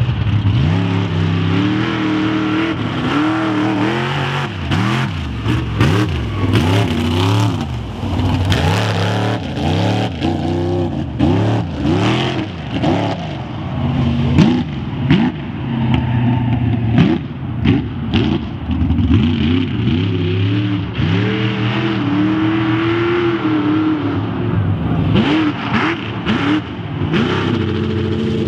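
Mega truck engine driven hard, the revs rising and falling every second or so as the throttle is worked, with frequent sharp cracks mixed in.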